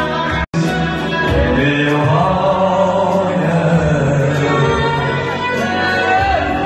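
A man singing an Uzbek song live into a microphone over musical accompaniment. The sound cuts out completely for a split second about half a second in.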